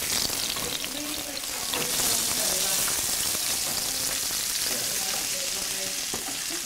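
Vegetables sizzling in a hot frying pan as they are stir-fried, a steady hiss with faint background voices.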